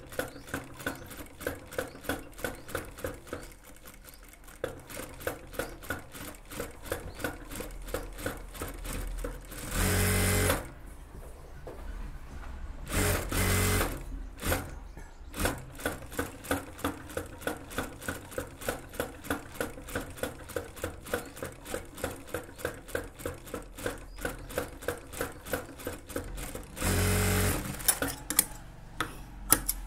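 Industrial sewing machine stitching a gathered seam slowly and evenly, with a regular tick of the needle about two to three times a second. Three brief, louder runs of fast sewing break in, twice near the middle and once near the end.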